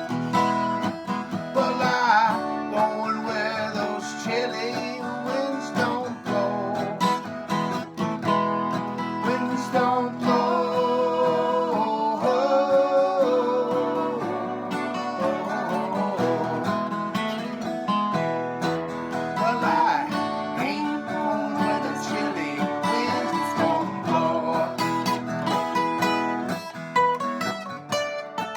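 Acoustic guitar music, an instrumental break between sung verses: strummed chords with a melody line bending over them.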